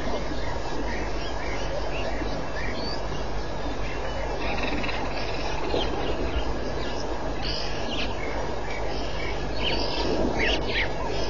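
Short, high-pitched animal chirps and squeaks, scattered and coming thicker about ten seconds in, over a steady hiss.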